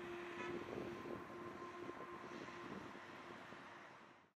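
Distant city traffic ambience with a steady hum running under it, fading out near the end.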